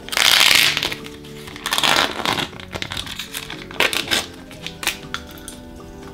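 Plastic food packaging being peeled open and crinkled, in three rustling bursts, the longest at the start, over soft background music with sustained tones.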